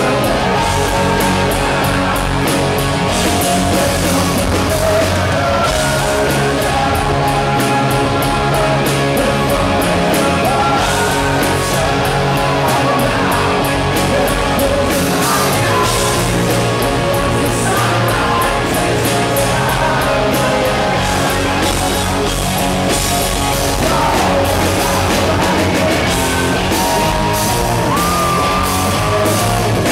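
Loud live rock band: a male lead vocal singing over electric guitars and a drum kit.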